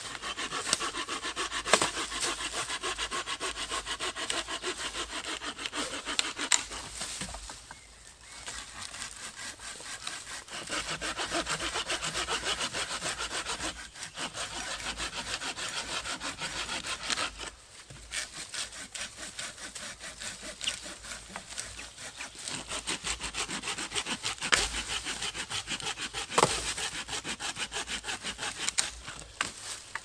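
Hand saw cutting through wood, rapid back-and-forth strokes in several bouts with short pauses between them, as firewood is sawn at camp.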